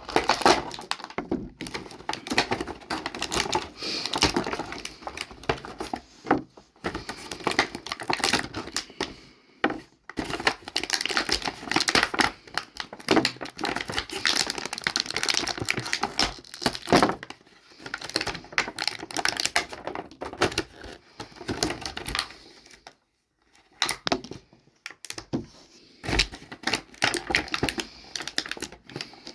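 Plastic packaging tray crackling and clicking as an action figure and its accessories are pried and pulled out: a dense, uneven run of small clicks and crinkles, with a brief pause near the end.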